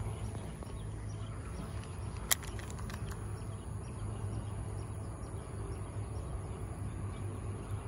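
Insects chirring in a steady high-pitched drone over a low steady hum, with one sharp click about two seconds in.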